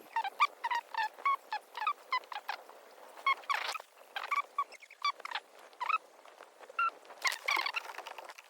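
A string of short chirping animal calls, about four a second at first and then more spaced out.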